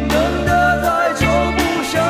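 A song: a male lead vocal singing a melody over band accompaniment.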